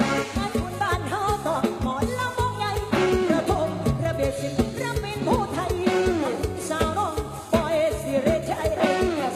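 Lam sing band music: a singer's voice over a band with guitar and a steady drum beat.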